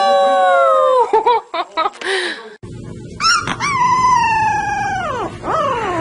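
Two puppies howling one after the other. A boxer puppy's long, held howl falls away and stops about a second in, followed by a few short broken sounds. A small fluffy puppy then gives a howl that rises, holds and slides down in pitch a little after five seconds in, ending in short falling cries.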